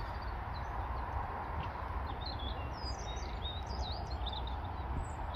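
Small songbirds chirping in quick high twittering phrases, mostly in the second half, over a steady low rumble.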